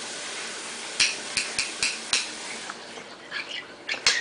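A metal spoon clinking and scraping against a plate as a toddler feeds himself: a quick run of taps about a second in, scattered fainter taps after, and a sharper clink near the end.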